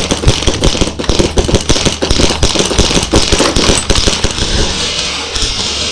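Several airsoft guns firing rapidly at once, a dense, irregular crackle of shots that runs on without a break.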